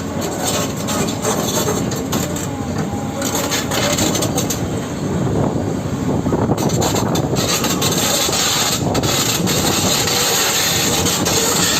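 Excavator running and crawling on its steel tracks, a dense, continuous clattering and grinding. It grows a little louder about six seconds in.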